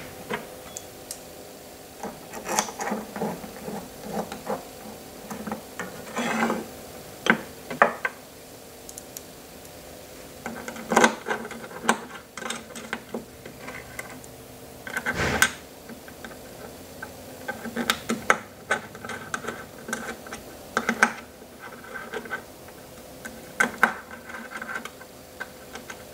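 Irregular clicks, taps and knocks of small parts being handled on a wooden workbench: a hex screwdriver driving screws that fix ball screw bearing blocks to end plates, with screws and tools picked up and set down. A faint steady hum sits underneath.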